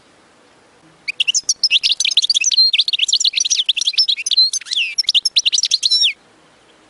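European goldfinch singing: a rapid, unbroken run of twittering high notes that starts about a second in and cuts off abruptly about a second before the end.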